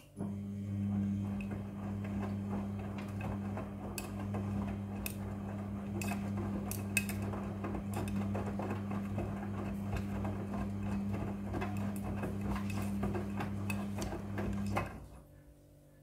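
Midea front-loading washing machine in its wash cycle: the drum motor hums steadily while the drum turns, tumbling wet clothes with a churning, sloshing noise and scattered clicks, then stops abruptly near the end.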